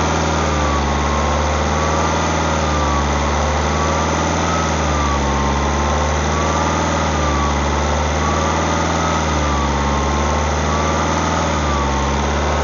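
Vauxhall/Opel Vectra C engine idling with a high whistle over it that slowly wavers up and down in pitch about every two seconds; the owner calls it a turbo whistle but does not know its cause.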